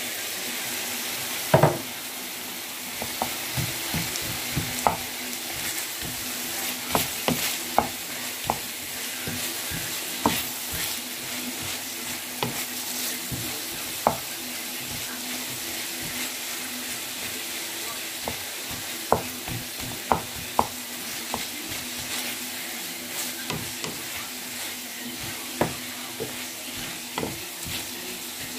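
Chicken, carrot and onion strips sizzling in a frying pan while a wooden spatula stirs them, scraping and knocking against the pan in irregular strokes. A louder clatter comes about a second and a half in.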